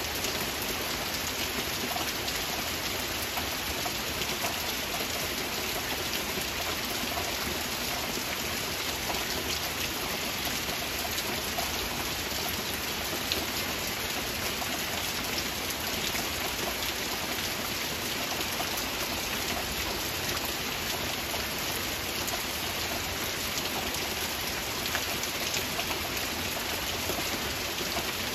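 Steady rain falling: a dense, even hiss with countless small drop impacts ticking through it, unchanging throughout.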